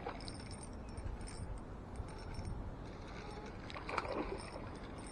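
A hooked largemouth bass splashing at the water's surface about four seconds in as it is reeled toward the bank, with faint clicks from the spinning reel being cranked.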